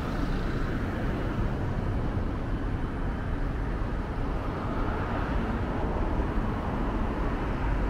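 Steady outdoor background noise, a constant low rumble with hiss, like city traffic heard at a distance.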